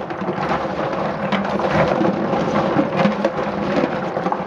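Black walnuts swished and scrubbed by hand in water in a stainless steel sink: steady sloshing with the hard shells clattering against each other and the sink. The nuts are getting nice and clean of their hulls.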